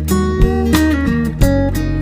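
Background music: a plucked guitar tune over a steady beat.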